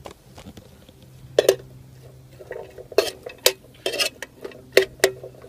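A metal spoon stirring diced vegetables in an aluminium mess-kit pan, scraping and clinking against the metal: one sharp clink about a second and a half in, then a quick run of clinks a little after halfway through.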